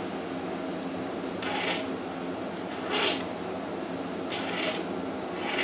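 Razor blade scraping along the edge of a glued veneer patch on a wooden cabinet, trimming it flush: about four short, scratchy strokes with pauses between them.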